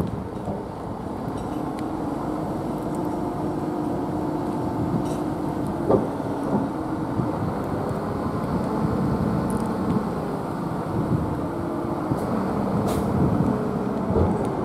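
An engine running steadily, a low hum with a steady tone over a rumble, broken by a sharp click about six seconds in and another near thirteen seconds.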